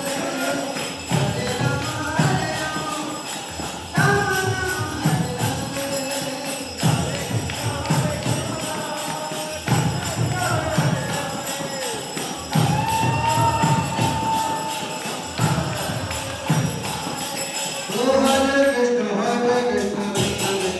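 Devotional kirtan: group singing of a chant over a steady beat, with jingling hand cymbals and drum strokes keeping the rhythm for dancing.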